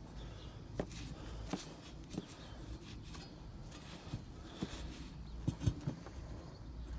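Scattered light knocks and clicks with faint handling noise as a rag is worked over a steel bicycle frame tube, the loudest few knocks coming close together a little after five seconds in.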